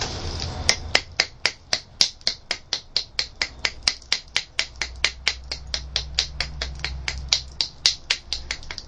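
Rapid sharp clicking of a hand tool worked against the edge of a flint piece, about four or five clicks a second, as the edge is nibbled back and abraded to prepare a striking platform.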